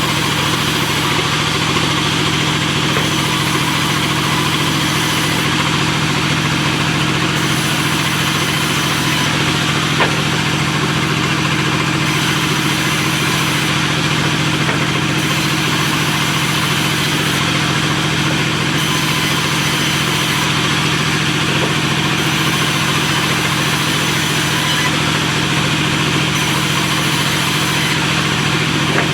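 Sawmill machinery running with a steady low hum and no break or change in pitch.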